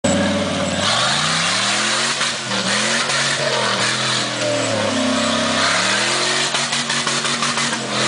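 Rock crawler buggy's engine revving up and down in repeated surges as it climbs rocky ledges, with a few sharp knocks near the end.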